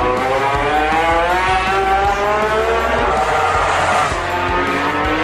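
Racing motorcycle engine at high revs, its pitch rising through the gears with short drops at each shift, and a brief dip in level about four seconds in.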